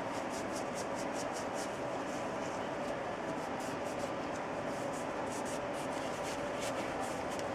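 Cloth wiping solvent off a Glock pistol's slide: quick scratchy rubbing strokes, about four a second, coming in spurts with short breaks.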